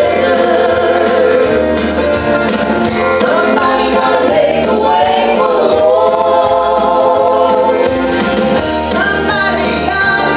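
Gospel vocal group of men and women singing together into microphones over instrumental accompaniment.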